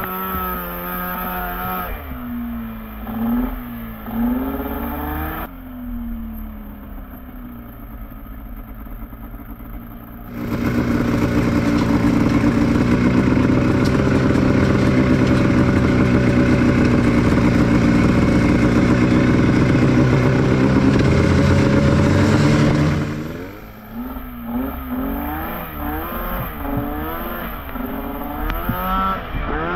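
Honda Pilot off-road buggy engine revving up and down as it works along a muddy trail. About ten seconds in it goes to high revs and holds there, loud and steady, for some twelve seconds, then drops back to uneven revving.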